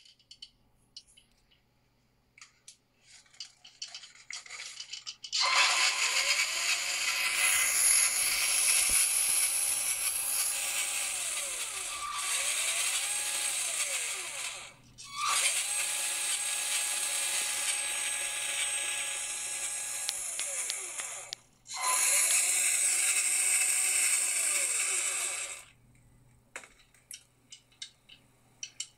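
Tamiya Mammoth Dump Truck RC model's electric motor and gear drivetrain running with the model on its back and its wheels in the air, in three stretches. Each has a whine that rises to a steady pitch, holds, and falls as the drive slows, over a loud whirring gear noise. Faint clicks come before and after.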